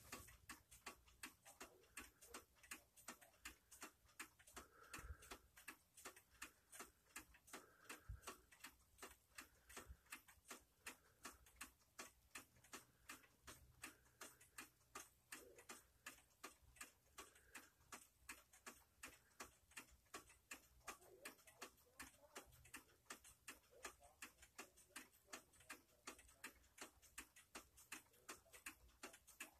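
Spartus 1970s electromechanical wall clock ticking faintly and evenly, a little over two ticks a second.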